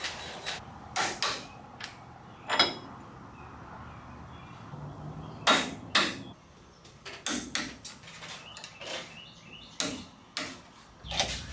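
Sonic click-type torque wrench being pulled on suspension bolts, giving a series of sharp, irregular clicks and clacks. Each firm click signals the set torque has been reached.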